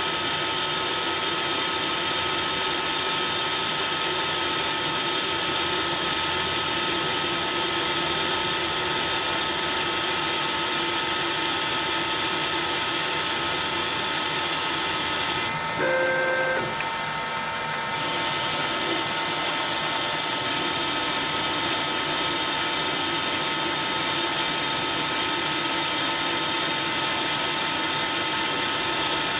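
CNC-converted Myford ML7 lathe running steadily, with a constant whine over an even mechanical hiss. A little past halfway the sound changes for about two seconds, with a few short tones, then the steady running resumes.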